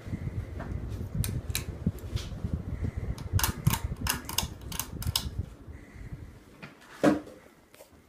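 Hunter Colonial ceiling fan running with a low rumble, while its light kit's pull chain is worked: about a dozen sharp clicks and rattles between about one and five seconds in. One louder knock near the end.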